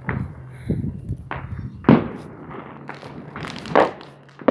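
Firecrackers and fireworks going off in irregular sharp bangs, the loudest about two seconds in and again near the end.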